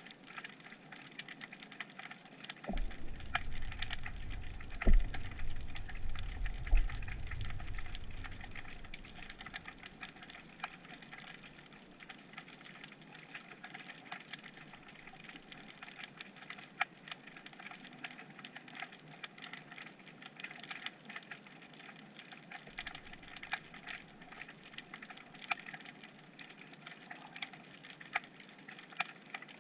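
Underwater sound picked up through a GoPro's waterproof housing: a steady hiss full of irregular sharp clicks and crackles. From about three seconds in to about nine, a low rumble rises under it, with two heavy thumps, the louder about five seconds in.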